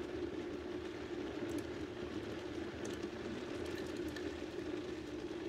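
Vitamix blender motor running steadily at low variable speed 3, a constant hum over a churning whoosh as it stirs hot soup while chunky ingredients are dropped in through the lid opening.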